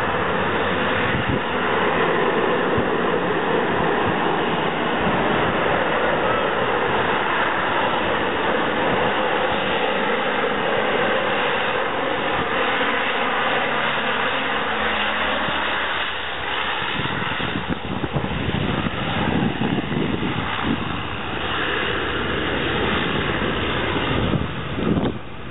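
Canadair amphibious water-bomber's turboprop engines droning steadily as it flies low overhead. From about two-thirds of the way in, wind buffets the microphone.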